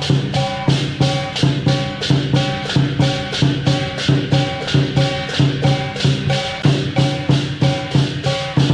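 Lion dance percussion band playing a steady, driving rhythm: a big Chinese drum with clashing cymbals at about four strikes a second and a gong ringing beneath.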